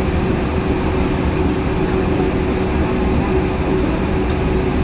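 Yurikamome 7300-series rubber-tyred automated guideway train running at steady speed, heard from inside the car: an even running rumble of tyres on the guideway with a steady low tone from the drive.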